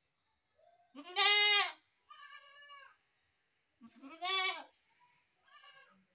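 Goat bleating: two loud bleats about three seconds apart, each followed by a fainter, shorter bleat.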